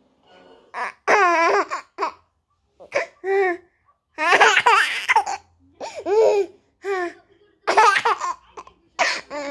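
Toddler laughing in about eight short bursts with brief pauses between, the high pitch wavering up and down.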